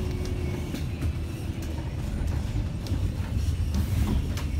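City bus in motion heard from inside the passenger cabin: a steady low rumble of engine and road noise, with a few light clicks scattered through it.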